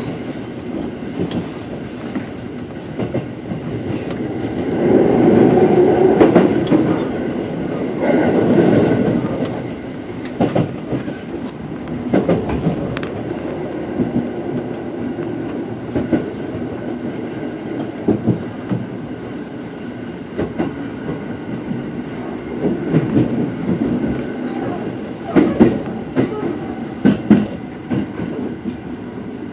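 Running noise heard inside a JR Central 373 series electric train as it pulls into its terminal station: a steady rumble with wheels clacking over rail joints and points every second or two. The rumble swells louder for a few seconds about five seconds in.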